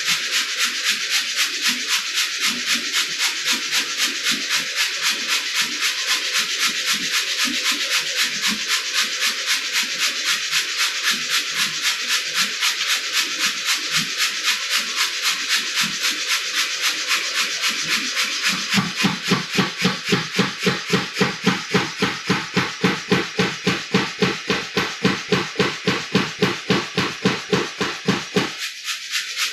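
Power hammer working hot steel in a steady rhythm of about four blows a second. About two-thirds of the way through the blows turn heavier and deeper, and they stop just before the end.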